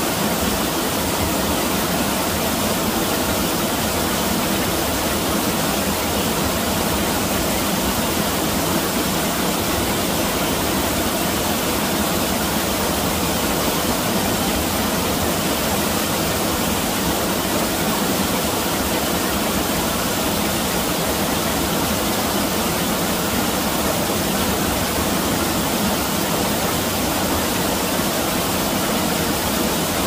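Rain-swollen mountain stream rushing and cascading over rocks: a steady rush of white water.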